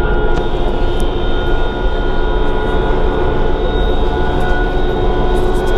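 Inside the cabin of a New Flyer D60LFR articulated diesel bus under way: a steady drone from the engine and drivetrain, with a low rumble and a constant whine over it.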